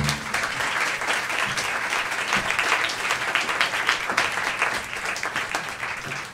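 Live audience applauding to welcome a guest on stage, a dense patter of many hands clapping that starts abruptly and fades out near the end.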